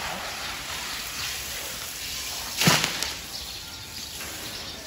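Water from a garden hose spraying onto an elephant's hide, a steady hiss and spatter, with one sharp slap about two and a half seconds in.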